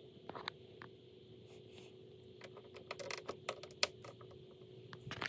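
Crinkling plastic bags and sharp clicks of hard plastic toy parts being handled and unwrapped, busiest around the middle, over a faint steady hum.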